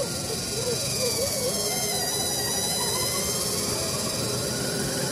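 Small electric winch on a 1/10-scale RC crawler running under load, its motor and gears whining steadily as it reels in the line to pull a stuck RC truck up a sandy bank. A wavering higher tone sits over it in the first second and a half.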